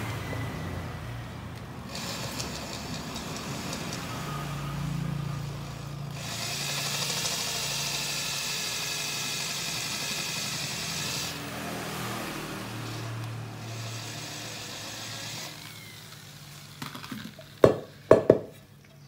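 A corded electric hand drill runs with a 10 mm bit, boring the oil-pump passage into an aluminium motorcycle clutch cover. The motor's pitch shifts as the bit cuts and it stops about three seconds before the end. A few sharp knocks follow as the cover is handled.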